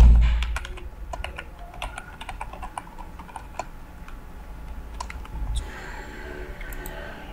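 Typing on a computer keyboard: quick key clicks in short runs for about five and a half seconds, opened by a low thump that is the loudest sound. A couple of clicks follow near the end.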